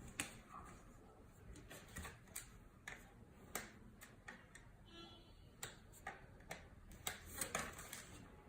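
Faint, irregular small clicks and taps from handling cardstock and a scoring tool while the card is being scored.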